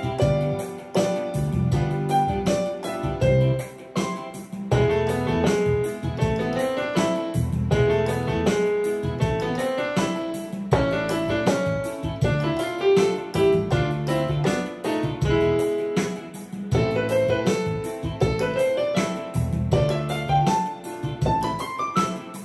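Yamaha PSR-S670 arranger keyboard played in a piano voice: quick runs of notes in the right hand over a low left-hand line, with a fast rising run near the end.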